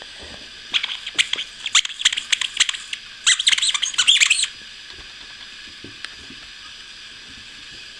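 Puppies at play: a quick run of short, high-pitched squeaks, starting about a second in, densest just before they stop suddenly around halfway, with only a steady hiss after.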